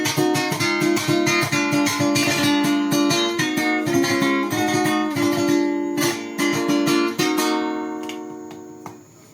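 Guitar strummed in a quick, steady rhythm, ending on a chord left to ring and fade for about two seconds before it stops.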